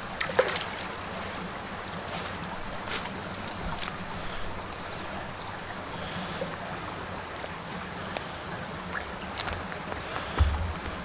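Steady rushing wash of water, with scattered light ticks and a dull low thump near the end.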